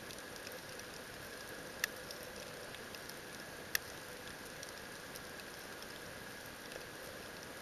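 Underwater ambience: a steady hiss with faint scattered crackle and two sharp clicks, about two and four seconds in.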